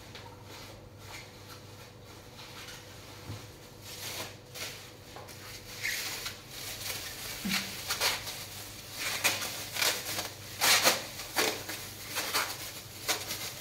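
Hand-cleaning of a kitchen stove and tiles: irregular short hissing strokes of scrubbing and wiping, starting about four seconds in and busiest near the end.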